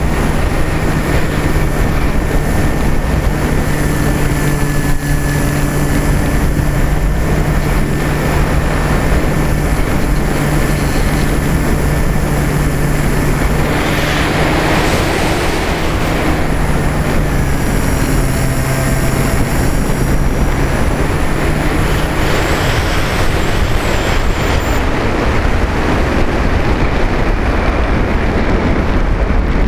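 Onboard recording of a model aircraft's motor droning steadily under a constant wind rush on the microphone. The wind noise surges briefly about halfway through, and the motor's pitch drops a little soon after.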